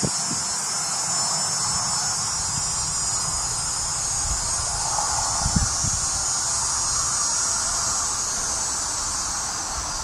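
Annual cicada song: a loud, steady, high-pitched whine made by the tymbals on the insect's abdomen, holding without a break.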